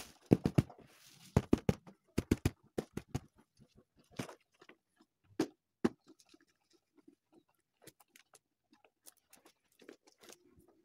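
A woven bamboo basket being knocked and lifted off a heap of paddy on a bamboo mat, with grain shifting. There are rapid sharp taps in the first three seconds, a few single knocks around four to six seconds, then faint scattered ticks.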